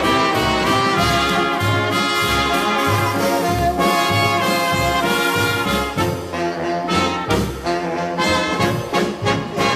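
1960s recording of a nine-piece big band playing an instrumental passage, with brass leading over a steady, regular bass beat.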